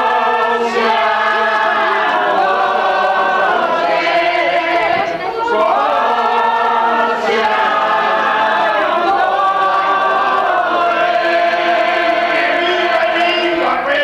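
A group of people singing together without accompaniment, holding long notes in three drawn-out phrases with short breaks between them.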